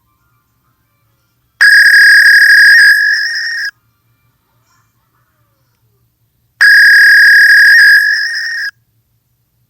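Fax machine sounding two long, high, steady beeps about five seconds apart, each lasting about two seconds and getting quieter partway through.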